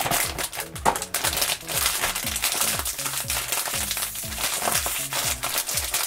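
A foil blind bag crinkling as hands squeeze it and pull it open, under background music with a regular low beat and bass notes.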